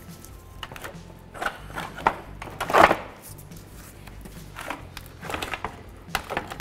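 Plastic cooling fan and shroud scraping and knocking against the radiator and hoses as it is worked loose by hand. The loudest is a scraping rustle about three seconds in, with smaller knocks before and after.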